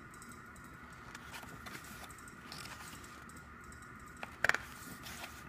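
Pages of an album photo book being handled and turned, giving a quiet paper rustle with one brief, louder flick about four and a half seconds in. A faint steady high hum sits underneath.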